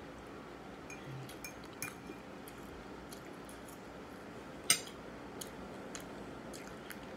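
Light clicks and clinks of a fork against a dinner plate while eating, with one louder clink a little past halfway.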